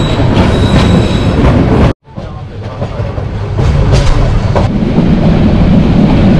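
Paharika Express passenger train running on its tracks, heard from an open doorway, with the clatter of the wheels and a steady rumble. The sound drops out briefly about two seconds in, then resumes.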